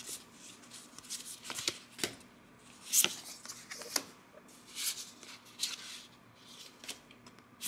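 Magic: The Gathering trading cards sliding and flicking against each other as they are fanned through by hand: a string of short, crisp swishes and snaps, the loudest about three seconds in.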